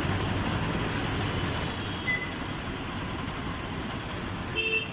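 Steady street traffic noise: a mix of running vehicle engines and road noise, with a brief tone about two seconds in and a short group of higher tones near the end.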